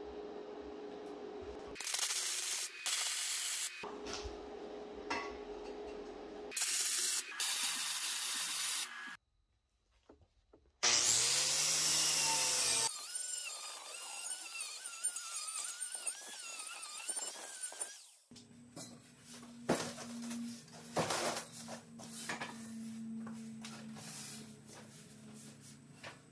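Short metal-shop work sounds cut together: bursts of power-tool noise, a whine that rises and falls, then a long stretch of an angle grinder with a wire cup brush scrubbing a weld on steel tubing. It ends in quieter knocks over a low hum.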